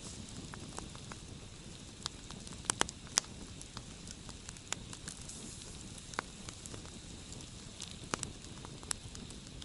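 Campfire crackling: irregular sharp pops and snaps over a steady low rush of the flames, with a cluster of louder pops about three seconds in and a few more near the end.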